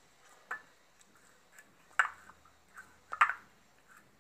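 Fingers and nails tapping and clicking against a cut-glass bowl while chewing gum is kneaded inside it: a few sharp taps, the loudest about halfway through and another a second later, with fainter ticks between.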